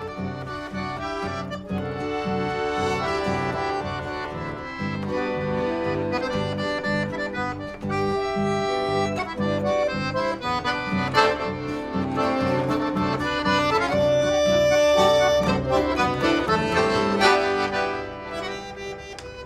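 Instrumental chamamé: accordion playing a melody of held notes over a steady, evenly pulsing low accompaniment.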